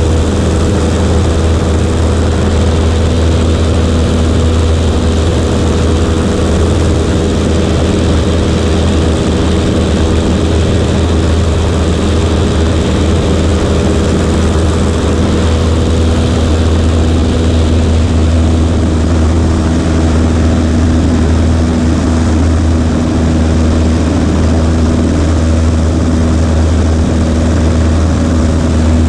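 Cessna 140A's four-cylinder piston engine and propeller running steadily, a loud, even drone with a deep hum and a broad hiss over it.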